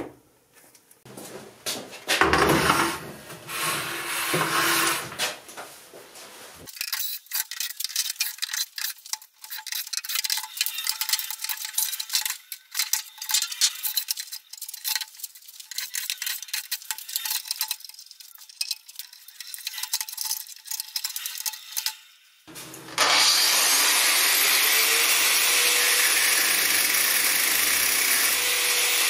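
Clicking, rattling handling noises as a microwave oven is taken apart. For the last six seconds or so, a Festool AGC 18 cordless angle grinder runs and cuts into a microwave oven transformer's steel core: a loud, steady grinding hiss over a motor whine that rises slightly.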